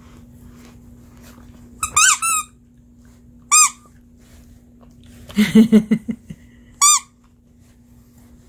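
Squeaker in a plush duck toy squeezed in short rising-and-falling squeaks: a quick pair about two seconds in, one at about three and a half seconds and one near seven seconds. A short flurry of rapid lower sounds comes about five and a half seconds in.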